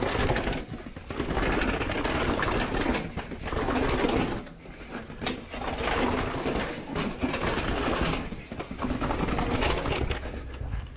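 Downhill mountain bike clattering and rattling at speed as it drops down concrete steps, in uneven surges of noise with brief lulls.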